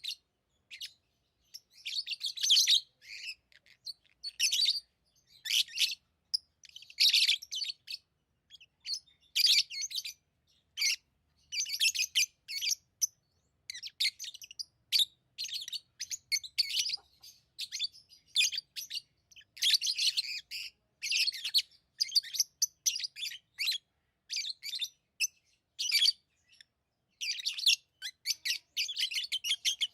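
Pet lovebirds chirping: clusters of rapid, high-pitched chirps separated by brief pauses.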